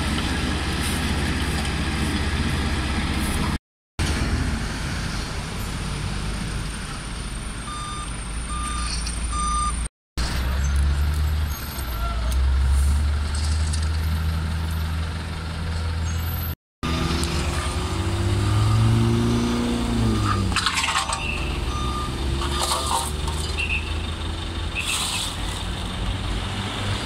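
Highway traffic: a steady low rumble of trucks and cars going by, with a few short beeps about a third of the way in and a heavy vehicle passing with its engine note rising and falling past the two-thirds mark. The sound breaks off briefly three times.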